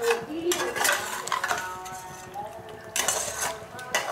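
A spoon stirring chicken in a thick masala paste, scraping and clinking against the sides and bottom of a non-stick cooking pot in two short spells.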